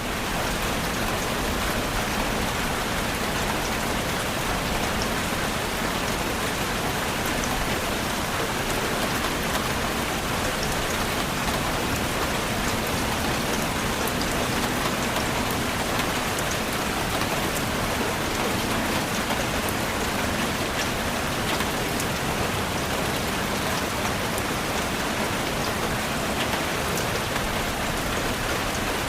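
Steady rain falling on a surface, a dense even hiss with individual drops pattering through it.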